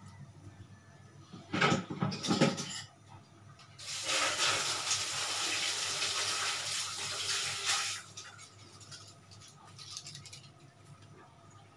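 A few clattering knocks, then a steady rush of running water for about four seconds that cuts off suddenly.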